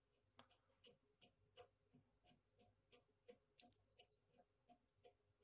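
Faint, irregular light clicks, two or three a second: the coupling nut of a braided toilet supply line being threaded by hand onto the shank of a new fill valve.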